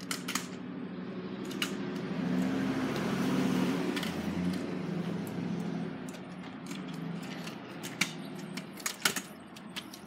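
A car passing on the street, its engine and tyre noise swelling over a couple of seconds and fading away. Scattered sharp clicks and rattles come and go throughout.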